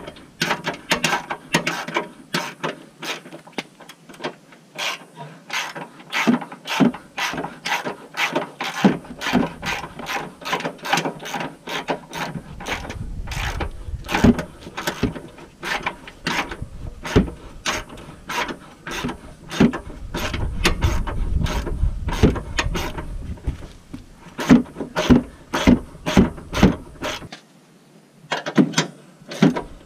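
Hand ratchet wrench clicking in quick runs of strokes while a transmission mount bolt is worked loose, with a low rumble at two points.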